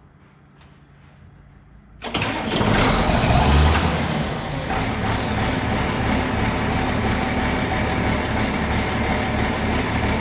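1995 John Deere 7800 tractor's six-cylinder turbo diesel starting about two seconds in, running loud for a couple of seconds and then settling into a steady idle.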